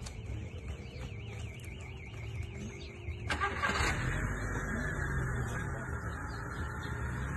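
A high alarm tone warbling up and down about five times a second, which stops abruptly at an edit about three seconds in. After it comes a louder, low rumbling noise of wind on the microphone.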